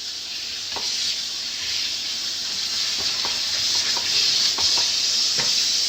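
Coated chicken pieces frying in hot oil: a steady sizzle with scattered pops and crackles.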